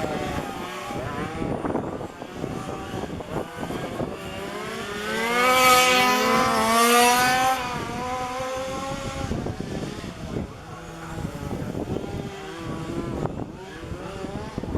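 Small two-stroke petrol engines of 1:5 scale RC race cars running on a track, revving up and down as the cars lap. One car comes close and is loudest from about five to seven and a half seconds in.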